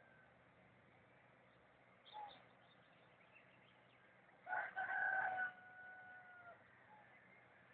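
A rooster crows once past the middle: a short broken opening, then a long held note that drops slightly at the end. Faint small-bird chirps come before it.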